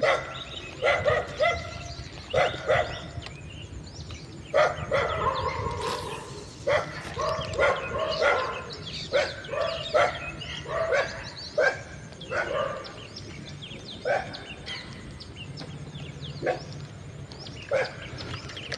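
Dogs barking repeatedly in irregular clusters of short barks, over a steady low hum.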